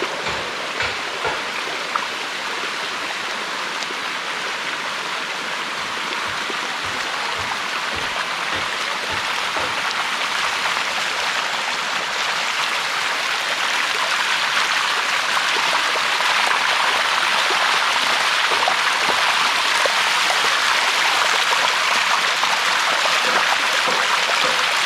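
Water rushing steadily down the cascades of the Bua Tong waterfall, growing louder through the first two-thirds. A few small knocks come in the first couple of seconds.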